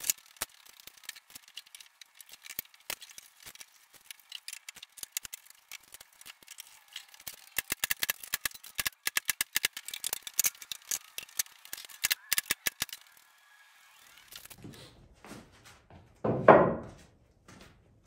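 Irregular metallic clicking and rattling, hand tools and hardware being handled, coming thick and fast for several seconds over a faint steady high hum. It then drops off, and one louder, heavier knock comes near the end.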